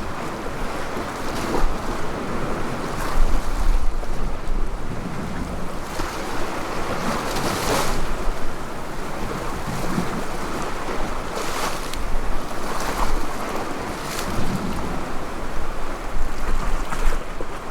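Sea waves washing and splashing, with a few louder surges, over wind buffeting the microphone.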